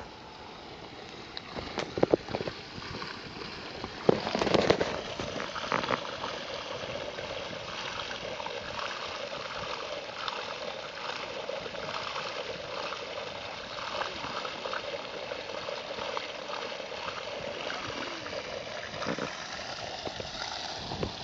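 Water from a solar-powered pump's outlet pipe gushing and splashing steadily into a salt pan, the sign that the pump is running and delivering. A few sharp knocks stand out about two seconds in and again around four to five seconds in.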